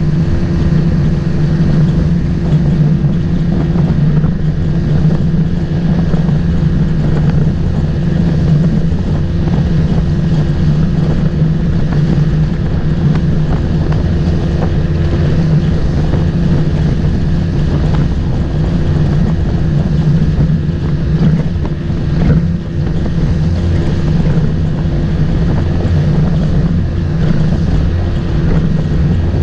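Motorboat engine running steadily at a constant speed, with wind buffeting the microphone.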